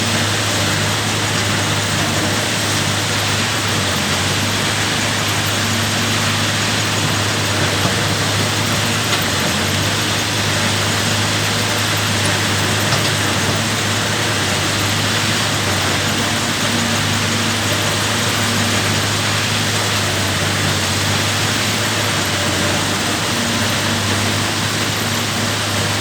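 Caterpillar 320 GC excavator's diesel engine running steadily, a constant low hum under an even hiss.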